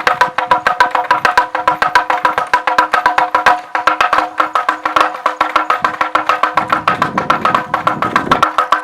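Wind-driven klopotec, a wooden vineyard rattle whose wooden hammers strike a resonant wooden board, clacking in a rapid, even rhythm of several knocks a second with a hollow wooden ring. A low rumble joins for about two seconds near the end.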